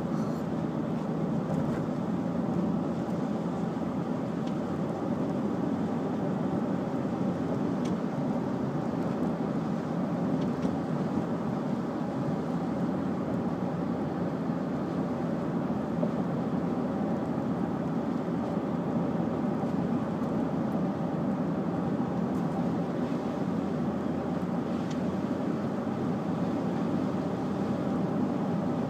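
Steady engine and road noise of a car being driven, heard from inside the cabin.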